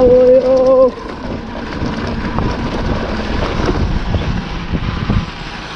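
Dirt-bike engine holding a steady note for about a second, then dropping away sharply. Wind buffeting the microphone and a rough low rumble follow.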